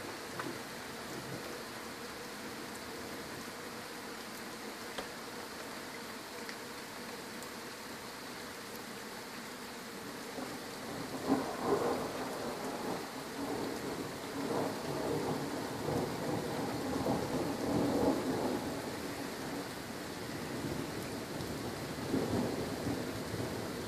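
Steady rain falling, with thunder rumbling in from about halfway through and rolling on for several seconds, then another peal near the end.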